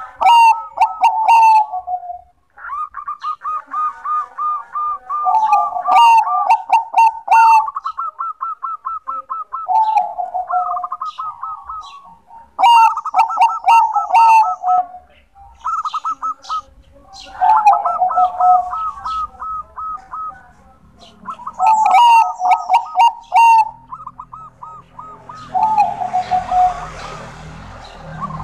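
Zebra dove (Bangkok-type perkutut) cooing its staccato song again and again, a rapid run of pulsed notes that steps down in pitch, one phrase every two to three seconds. A short burst of noise comes near the end.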